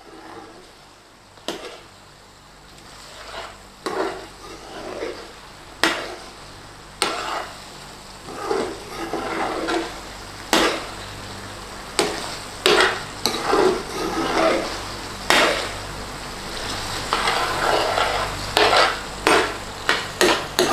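A utensil stirring and scraping around a pan of thick curry sauce as it sizzles and cooks down, in repeated strokes with occasional sharp clacks against the pan.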